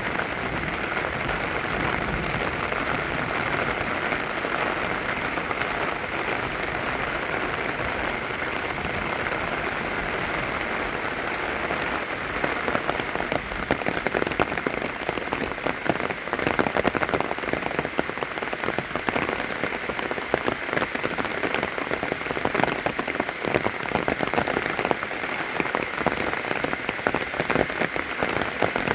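Steady rain falling, an even hiss; about halfway through, close individual drops striking nearby become more distinct as sharp irregular patters over the hiss.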